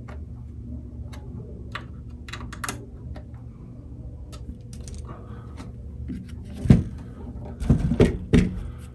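A screwdriver turns the wood screws that hold a hollow-body archtop guitar's tailpiece, making scattered faint clicks and scrapes. These are tightened to cure a floppy tailpiece that rattles. Near the end come several loud knocks as the guitar and tailpiece are handled.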